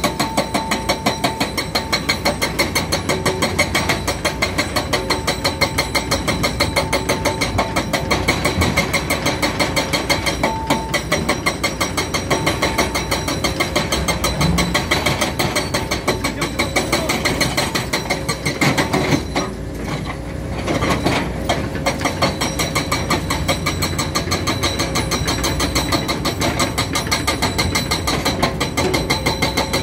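Hidromek HMK 390LC H4 excavator's diesel engine running as the machine works beside an idling dump truck, with a fast, even clatter that eases briefly about two-thirds of the way in.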